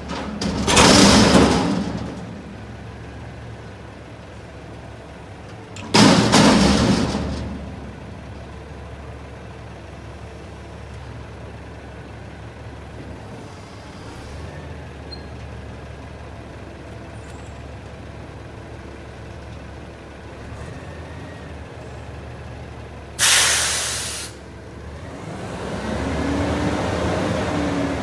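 Mack front-loader garbage truck idling, with three loud bursts of air hiss from its air system, twice in the first eight seconds and once more near the end. In the last few seconds the engine speeds up and settles again.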